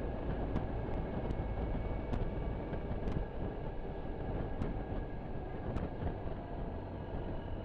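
Suzuki Burgman 650 scooter's parallel-twin engine running steadily while riding, mixed with a dense low rumble on the camera's microphone. A few faint, sharp ticks come at irregular moments.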